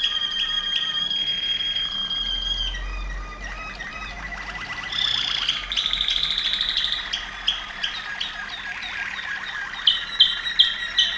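Waterslager (Malinois) canary singing: a fast run of repeated whistled notes, changing after about three seconds into a rapid rolling trill, with a string of sharper, louder notes near the end.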